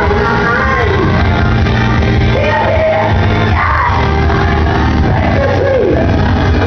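Live gospel music: a singer's voice sliding through long, bending notes over instrumental backing with a steady low bass, loud and continuous.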